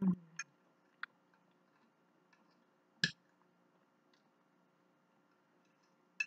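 Metal fork clicking against a plate of potato salad: a handful of separate sharp clinks, the first with a soft thump and the loudest about three seconds in.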